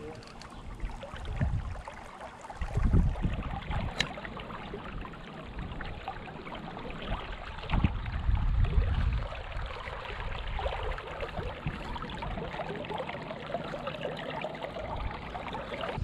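Creek water running and trickling steadily, with a few low rumbles about three and eight seconds in.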